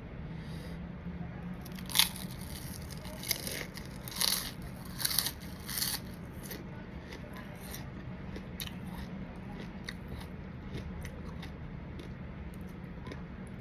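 Crunching bites and chewing of crispy crackers (khao kriap). About five loud, sharp crunches come in the first half, then softer chewing clicks.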